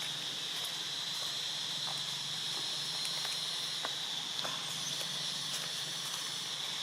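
Steady outdoor insect chorus, a continuous high-pitched buzz, with scattered faint clicks and snaps over it.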